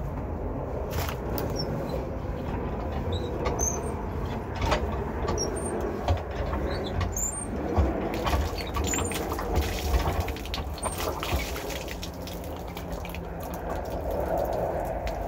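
Rusty hand pump being worked at a well: repeated metal knocks and clanks with small squeaks from the handle and pump rod, strongest over the first two thirds, and water splashing from the spout onto the ground.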